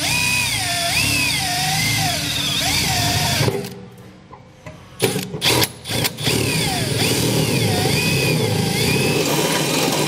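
Cordless drill driving a 2-1/8-inch hole saw through the truck bed's sheet-metal wall, the motor's pitch wavering as the saw bites and bogs. It runs for about three and a half seconds, stops, starts twice briefly around five seconds in, then runs steadily to the end; the saw is also cutting into a brace behind the panel.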